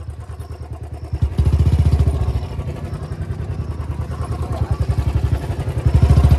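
Motorcycle engine running with a fast, pulsing beat, revved up sharply about a second in and again near the end.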